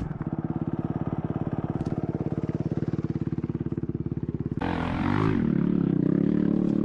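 Motocross bike's single-cylinder engine running with a fast, even pulse, then revved up suddenly about four and a half seconds in and held at a louder, higher note.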